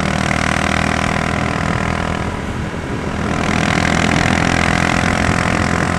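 Honda CG 150 Fan's single-cylinder four-stroke engine, bored out with a 4 mm kit, running through a Gemoto Racing aftermarket exhaust while riding: a deep, full-bodied exhaust note rather than a crackly one. It dips briefly about two and a half seconds in, then picks up again.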